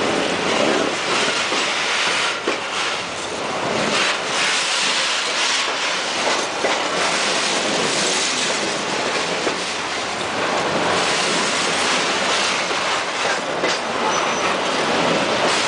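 Loaded freight train's hopper wagons rolling past at close range, steel wheels clattering over the rail joints in a steady stream of knocks, with a brief high squeal near the end.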